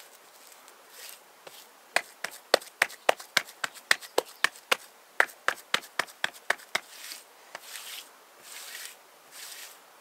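A quick run of about twenty sharp knocks, roughly four a second, starting about two seconds in and stopping about seven seconds in, followed by softer scraping or rustling.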